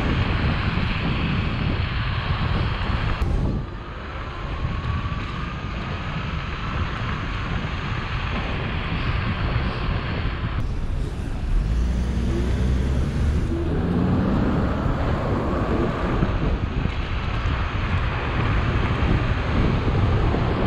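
Wind rushing over the microphone and road rumble from an electric scooter riding on city streets. The sound jumps abruptly a few times.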